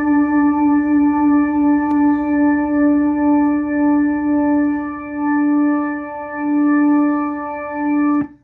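A single held organ note playing through a Leslie rotating speaker. Its volume wavers quickly at first and then in slower swells as the rotor slows, and the note stops abruptly near the end. The Leslie amplifier, running on a freshly fitted 12AU7 tube, holds its volume without dropping out.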